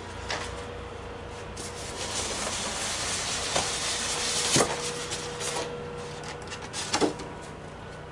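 A cardboard box and its white packing being handled while unpacking: rubbing and scraping, with a few sharp knocks, the loudest about four and a half and seven seconds in.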